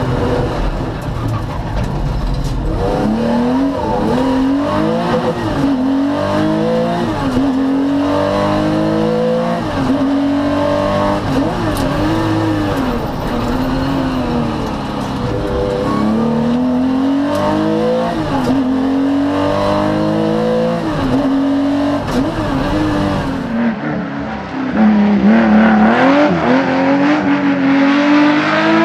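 Porsche 911 SC Rally Special's air-cooled flat-six engine heard from inside the cabin as the car is driven hard, its revs climbing and dropping again and again through gear changes and corners. Near the end the sound switches to the same kind of car heard from the trackside, accelerating.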